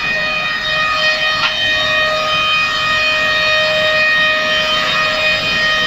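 Four-sided moulder running, its cutter spindles giving a loud, steady high-pitched whine, with a brief tick about a second and a half in.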